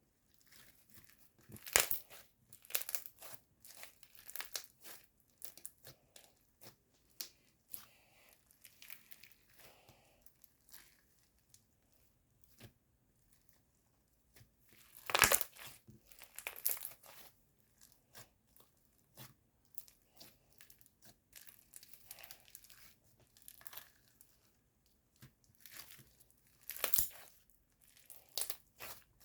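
White crunchy slime being pressed and pulled by hand, crackling and popping in irregular runs of small snaps. Louder bursts come a couple of seconds in, in the middle and near the end.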